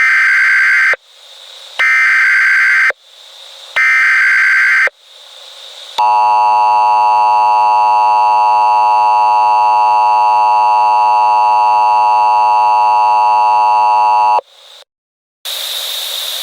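Emergency Alert System broadcast tones: three loud, one-second buzzing data bursts of the EAS header, then a steady, harsh two-tone attention signal for about eight seconds. It cuts off, and a steady hiss of static starts just before the end.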